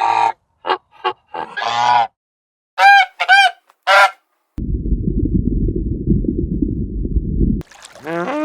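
Farm waterfowl honking, about eight short, harsh calls in quick succession, followed by a few seconds of low rumbling noise.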